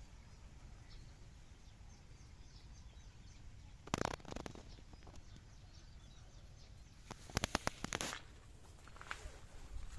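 Quiet rural outdoor ambience: a low steady rumble with faint bird chirps. A short rustling scuff comes about four seconds in, and a quick crackling rustle, like leaves, netting or feet on debris, comes between seven and eight seconds.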